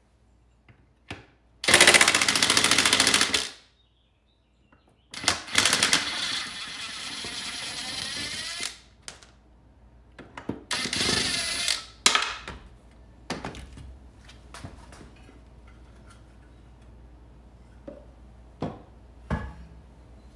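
Cordless impact wrench hammering in three bursts as it loosens the lawn mower's blade bolt, the middle burst the longest. Afterwards come a few scattered clicks and knocks of metal parts being handled.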